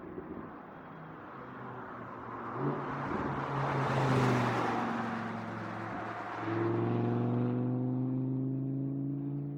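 Audi R8 sports car engine running as the car is driven, its sound swelling with broad road and engine noise to its loudest about four seconds in. About six and a half seconds in the engine note steps up and holds steady.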